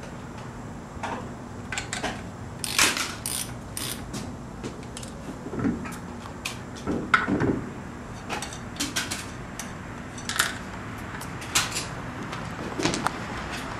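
Lug nuts being spun off a car wheel's studs by hand: irregular metallic clicks and short scrapes.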